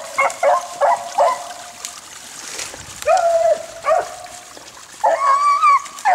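Beagles baying while running a rabbit. Several short bays come in quick succession, then two longer drawn-out bays about three and five seconds in.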